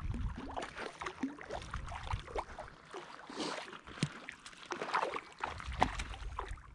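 Shallow lake water splashing and sloshing in short, irregular bursts.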